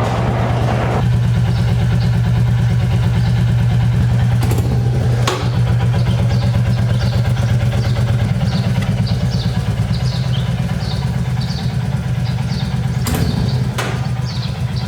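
Motorcycle engine idling steadily, a low even hum with a fast pulse, with a few sharp clicks over it.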